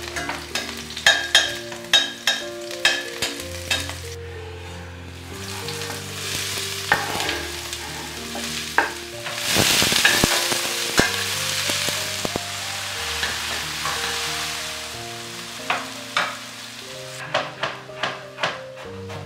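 Garlic sizzling in hot oil in a stainless steel pan, with a metal utensil clicking and scraping against the pan as it is stirred. About ten seconds in the sizzle swells loudest while diced potato and onion are stirred in the pan. Near the end a knife chops coriander on a wooden cutting board in quick knocks.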